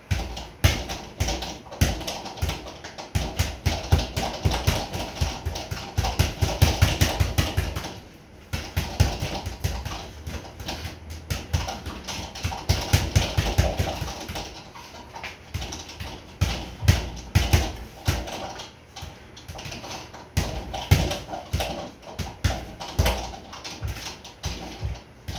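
Boxing gloves striking a sideways double-end (kangaroo) bag in flurries of quick smacks, several a second, with a short lull about eight seconds in and another near the end.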